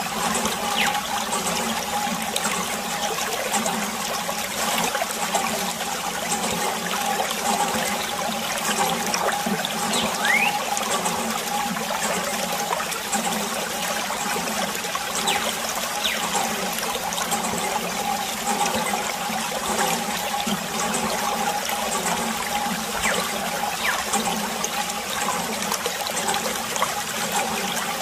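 Water trickling steadily from a thin plastic tube into a shallow puddle.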